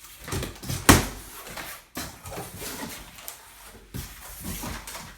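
Large cardboard shipping box being opened and handled: flaps and packing rustling and knocking, with one sharp thump about a second in.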